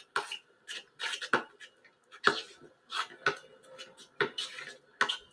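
Basketball bouncing on an outdoor asphalt court, dribbled in an uneven rhythm of short sharp slaps, about one or two a second.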